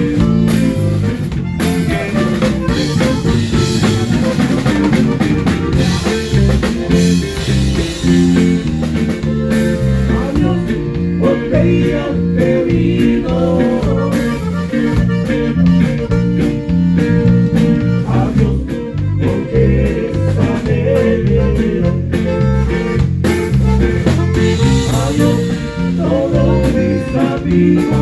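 Live band playing an instrumental passage, with drums and guitar over a moving low line of notes.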